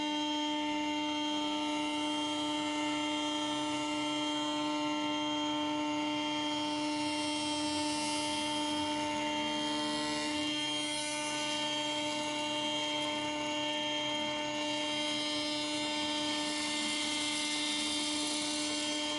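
CNC router spindle running with a steady whine of several tones while a PLEXITOP router bit mills a polycarbonate sheet, a hissing cutting noise over it. The cutting noise swells twice, the second time near the end, where it marks strong vibration of the sheet, which is held only at a few suction cups.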